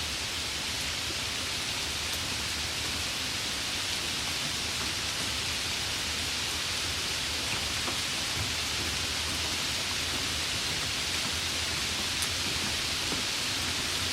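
Light rain falling in a steady hiss, with a few faint drop ticks here and there.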